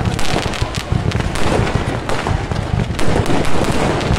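Fireworks and firecrackers going off in a dense, continuous crackle of many quick bangs.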